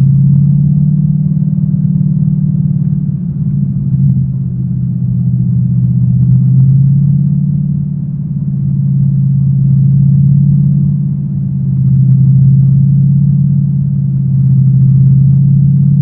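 Car engine droning steadily at an even cruising speed, heard from inside the cabin, with road rumble and gentle swells in loudness.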